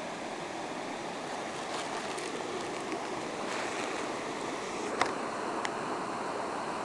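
Waterfall rushing: a steady wash of falling water, with one sharp click about five seconds in.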